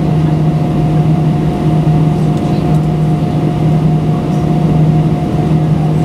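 Airbus A320 cabin noise while taxiing: its CFM56-5B engines at idle thrust give a steady hum with a low drone and a fainter higher tone, heard inside the cabin over the wing.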